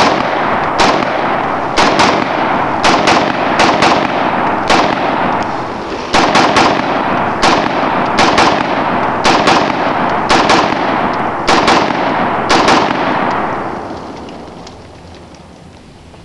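AR-15-style semi-automatic rifle firing about twenty shots at an uneven pace, often in quick pairs. The shots stop about three-quarters of the way through.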